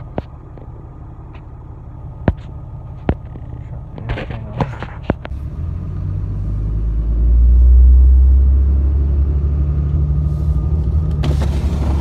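Pickup truck driving on a gravel road, heard from inside the cab: a low rumble of engine and tyres that builds from about halfway through. Before that, a few sharp clicks and knocks as the phone is handled.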